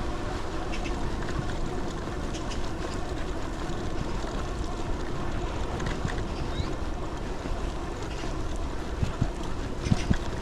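Steady wind rush on the microphone and road noise from a moving vehicle on the ride, with a couple of short knocks near the end.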